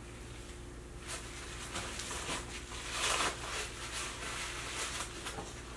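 Soft rustling and handling noises, a few short ones with the loudest about three seconds in, over a steady low electrical hum.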